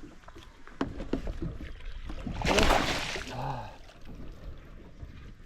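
Barramundi splashing at the surface beside the boat as it is landed: one loud splash about two and a half seconds in, among scattered knocks on the boat hull.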